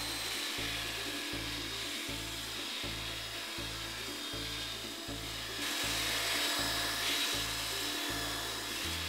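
Handheld electric belt sander running against a large wooden beam, a steady high whine with sanding hiss that gets louder a little past halfway. Background music with a steady pulsing beat runs underneath.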